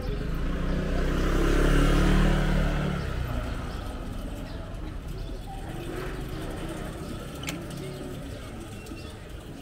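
A motor vehicle passing close by, its low engine rumble building to a peak about two seconds in and fading over the next second, followed by quieter street noise with voices.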